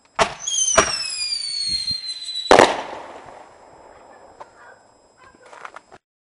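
Consumer firework shells fired from mortar tubes: two sharp launch bangs, a high whistle falling in pitch for about two seconds, then the loudest bang, the shell bursting, whose sound fades out over a few seconds with a few faint pops.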